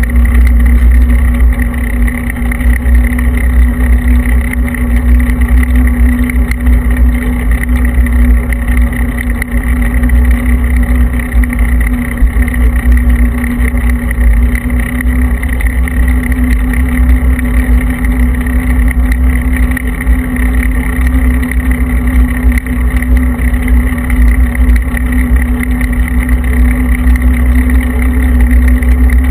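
Steady wind buffeting on the microphone of a camera moving along a road, mixed with continuous tyre rumble on fresh asphalt and a constant hum.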